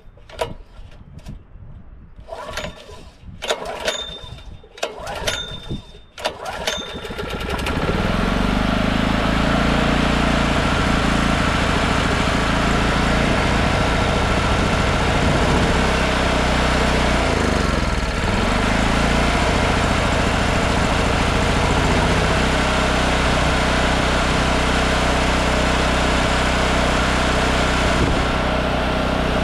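Several pulls on the recoil starter of a small portable generator's 5.5 hp single-cylinder gas engine, choke on. The engine catches about seven seconds in and then runs steadily, its speed dipping and recovering once about eighteen seconds in. It is running on its freshly cleaned carburetor.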